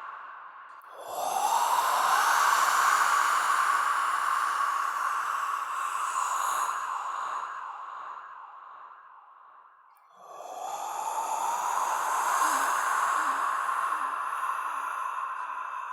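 Ghostly horror voice sound effect: a long, breathy, drawn-out "ahhh" that slides up in pitch at its start, holds, then fades away. It comes twice: once about a second in, and again about ten seconds in.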